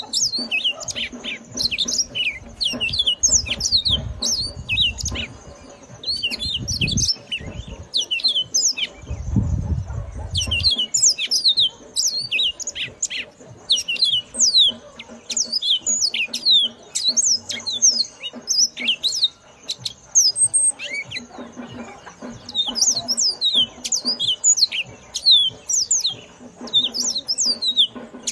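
Yellow-fronted canary (mozambique) singing: a fast, high-pitched twittering song of quick sweeping chirps, given in phrases of a few seconds with short pauses between them.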